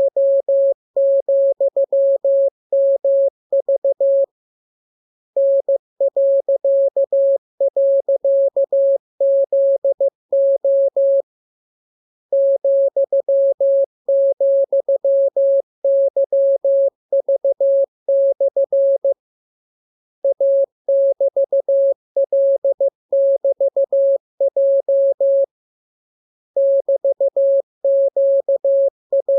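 Morse code (CW) sent as a single steady tone keyed on and off in dots and dashes, in runs of characters separated by pauses of about a second.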